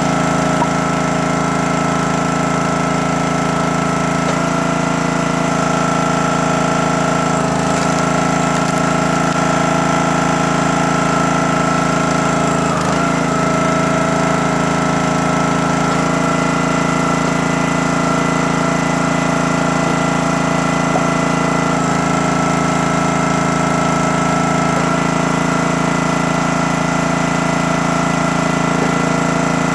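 CountyLine 28-ton log splitter's engine and hydraulic pump running steadily, the note shifting every few seconds as the splitter works through the wood.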